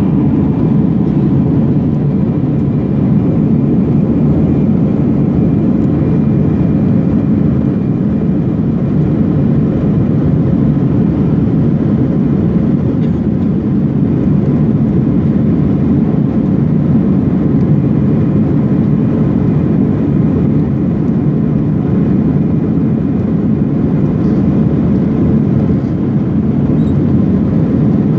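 Cabin noise inside an Airbus A321-200 in flight: a steady, loud low rumble of the jet engines and rushing airflow, with a faint steady hum riding on top.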